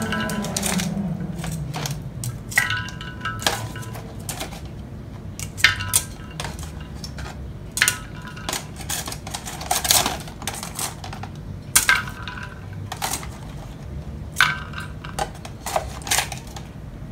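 Ice cubes lifted with metal tongs and dropped into a plastic pitcher. About fifteen sharp clinks and knocks come at irregular intervals, each ringing briefly.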